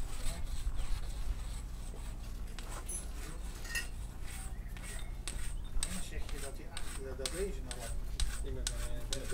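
Scattered clicks and light metallic clinks of hand tools and loose parts being handled at a motorcycle, growing busier in the second half, over a steady low rumble.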